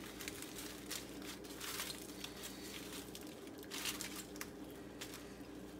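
Baked puff pastry crackling and tearing as hands break a flaky sheet apart on a foil-lined baking tray, with the foil crinkling. A run of small crackles, louder twice, about two and four seconds in, over a faint steady hum.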